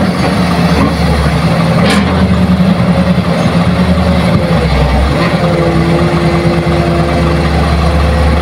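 Hitachi hydraulic excavator's diesel engine running steadily while it loads soil into a dump truck, with a single knock about two seconds in. A higher steady tone joins for a couple of seconds past the middle.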